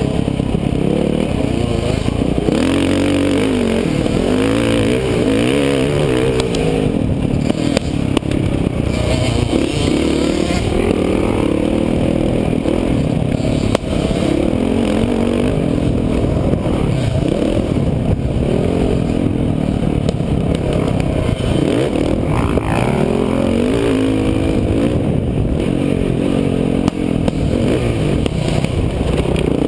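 Dirt bike engine heard from on the bike as it is ridden round a motocross track: the revs keep rising and falling, every second or two, through throttle and gear changes.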